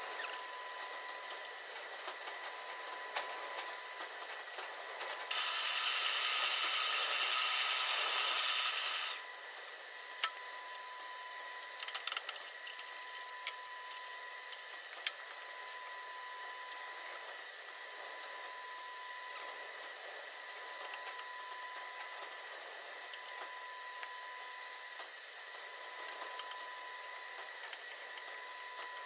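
Metalworking sounds at a milling machine while a piston is being set up on its rotary table: a faint steady whine throughout, with scattered clicks and knocks of tools and clamps. About five seconds in, a loud rushing noise lasts about four seconds, then cuts off.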